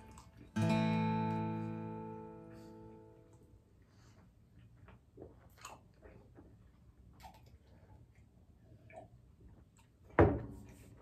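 An acoustic guitar chord strummed once and left to ring out, fading away over about three seconds. Then faint swallowing and mouth sounds while drinking water, and near the end a drinking glass set down on a coffee table with one sharp knock.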